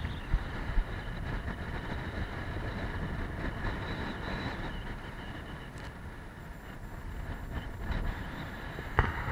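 Wind buffeting the microphone and the rush of rough sea past a Moody 44 sailing yacht heeled under sail, a steady noisy roar with a deep rumble. There are a couple of short knocks about half a second in and a sharper thump near the end.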